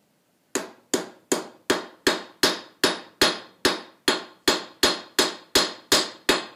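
Blacksmith's hand hammer striking hot coil-spring steel on an anvil while forging a slitting chisel: steady blows about three a second, each with a short metallic ring. The hammering starts about half a second in.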